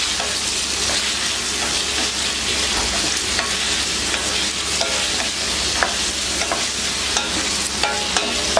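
Mutton liver pieces with garlic and green chillies sizzling in hot oil in a steel pan, stirred with a wooden spatula: a steady frying hiss with a few sharp taps and scrapes of the spatula against the pan in the second half.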